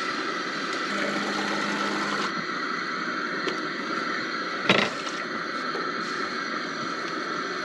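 Portable gas camp stove burner running with a steady hiss under a simmering pot, and a single sharp knock about five seconds in.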